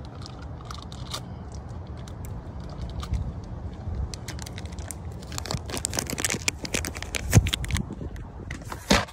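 Irregular clicks, crinkles and scrapes of hand work on parts in an engine bay, over a steady low rumble. The clicks grow denser after the middle, with a sharp knock and a short burst near the end.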